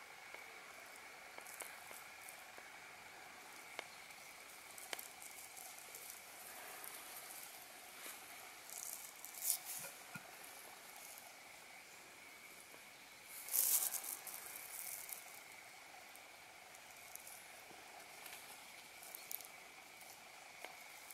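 Quiet outdoor background: a faint steady hiss with a thin high whine and small scattered crackles, broken by two brief louder rustles, about 9 and 13 seconds in.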